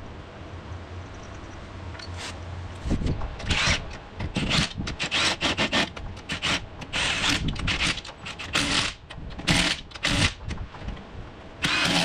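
Impact wrench run in many short, irregular bursts, tightening lug nuts as a wheel goes onto a Jeep Cherokee over wheel spacers. A low steady hum comes first, for about two seconds.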